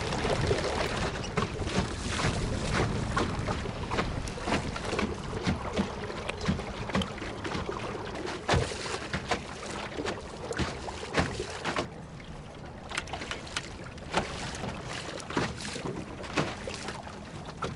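Waves slapping and knocking against a canoe hull in choppy water: many irregular sharp slaps over a steady wash of wind and water, easing off a little about two-thirds of the way through.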